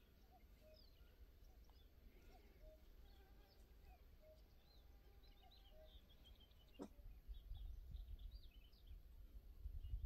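Near silence with faint birdsong: scattered short high chirps and a short low note repeating about once a second. A single click comes about seven seconds in, and a low rumble grows louder over the last few seconds.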